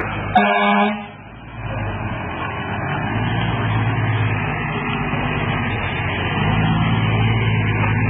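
Fire engine's diesel engine running as the truck moves along the street, louder about six and a half seconds in. About half a second in, a short loud horn-like blast.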